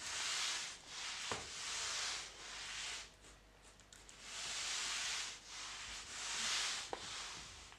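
A mop swishing back and forth over a hard floor in strokes about a second long, with two sharp clicks between strokes.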